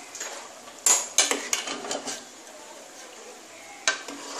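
Metal ladle clinking and scraping against the sides of a metal cooking pot while stirring thick khichuri: a sharp clink about a second in, a few quicker knocks over the next second, and one more clink near the end.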